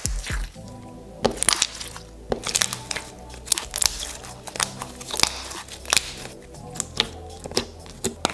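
Clear slime with small plastic flower pieces squeezed and poked by hand, making irregular sharp clicking pops about once or twice a second, over background music.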